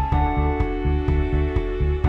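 Background music with sustained notes over a steady bass beat of about four pulses a second.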